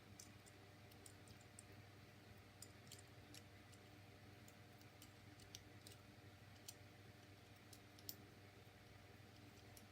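Faint, irregular small clicks of a plastic Transformers action figure's parts being moved and snapped into place, over a low steady hum; the sharpest click comes about eight seconds in.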